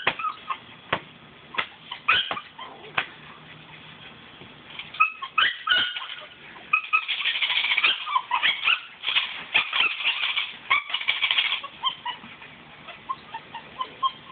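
Eight-week-old Belgian Malinois puppy making small dog sounds as it chases and bites a tug rag, amid a run of short sharp snaps and scuffs; the sounds are densest in the middle.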